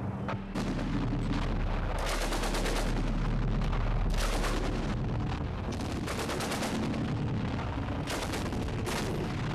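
Short bursts of automatic gunfire, several in a row about every one to two seconds, over a steady low drone.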